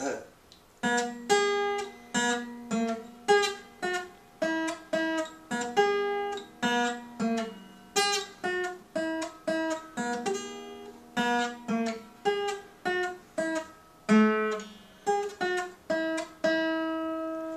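Steel-string acoustic guitar played by hand: a slow picked tune of single notes and small chords, about two a second, each note ringing out and fading.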